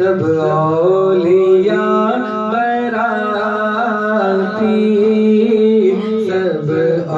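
A naat, a devotional song in praise of the Prophet, sung by one voice in a winding melody that glides between notes over a steady low drone.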